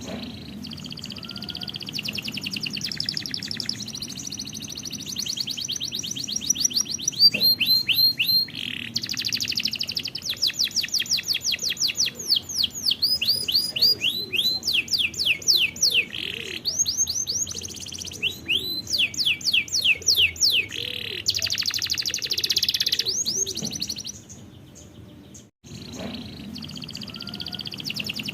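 Domestic canary song: long rapid trills of repeated notes, broken up by runs of quick falling whistled sweeps. The singing drops away briefly about 24 seconds in, then starts again. This is a song-tutor recording, played to young canaries for them to learn from.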